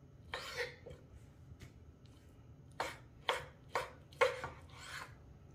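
Knife slicing raw beef into thin strips on a cutting board. There is one longer cut near the start, then four quick strokes about half a second apart, and a last drawn-out cut.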